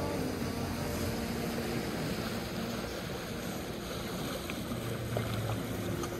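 Small fishing boat's engine running with a steady low hum as the boat comes in toward the rocks, over the wash of waves and wind.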